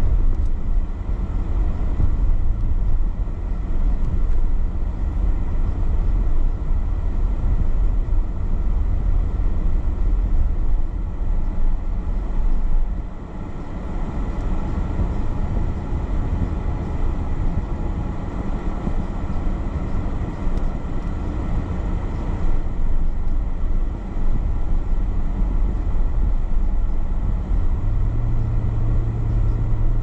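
Road noise inside a moving car: a steady low rumble of engine and tyres with a hiss from the wet, slushy pavement, dipping briefly about halfway through. A steady low hum comes in near the end.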